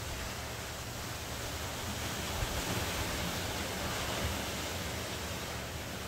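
Ocean surf breaking and washing up the shore as a continuous hiss over a low rumble. It swells about two seconds in and eases off toward the end.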